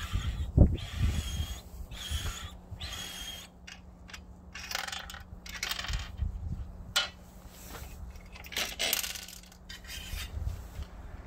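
Rip fence of a Bosch GTS 635-216 table saw being slid along its rail and its aluminium fence profile repositioned by hand: irregular metal scraping and sliding strokes with clicks and clunks.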